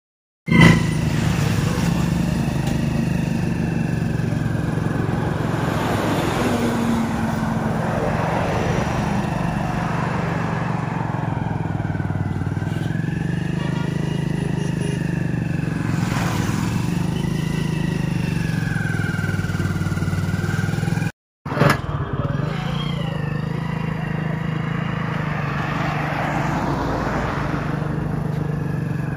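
Motorcycle engine running steadily at low speed, with a brief break about two-thirds of the way through.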